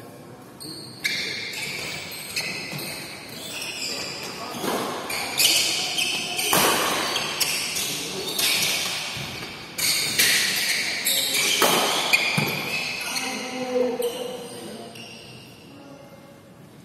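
Badminton doubles rally: sharp racket smacks on the shuttlecock every second or so, with short high squeaks of shoe soles on the court mat. The hitting stops about three-quarters of the way through as the rally ends.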